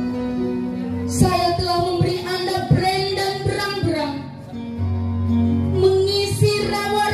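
Music: a song with a high singing voice over instrumental accompaniment and an occasional beat.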